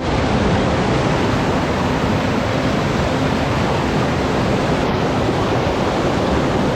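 Waterfall running: a steady rush of falling water, starting abruptly.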